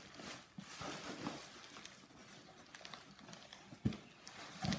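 Cardboard shipping box being handled: rustling and scraping of the flaps and packing material, with two dull thumps, about four seconds in and again near the end, as the box is tipped and shifted on the table.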